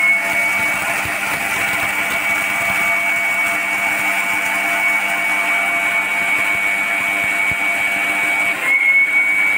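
Orpat 1200 W mixer grinder running steadily with its small stainless steel dry grinder jar, grinding dry parboiled rice into powder: a loud, continuous high motor whine with a short dip and change in its note near the end.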